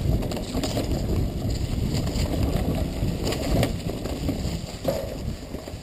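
Mountain bike riding fast down a rough, rocky dirt trail: tyres rumbling over dirt, leaves and rocks, the bike rattling with sharp knocks, and wind buffeting the microphone. It gets quieter for the last second or so.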